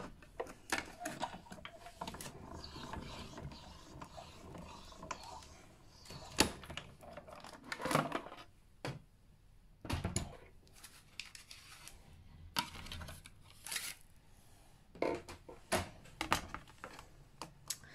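Hand-cranked embossing machine feeding a card in a 3D embossing folder and embossing plate through its rollers: intermittent rubbing and mechanical clicking, with a few louder knocks of plates and folder being handled.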